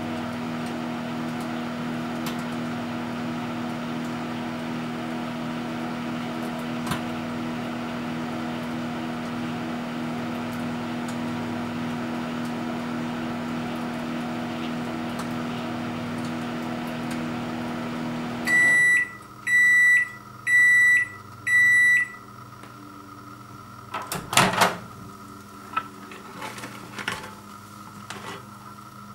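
Microwave oven running with a steady hum, which stops about two-thirds of the way through. Four beeps about a second apart then signal the end of cooking, followed by a couple of sharp clicks as the door is opened.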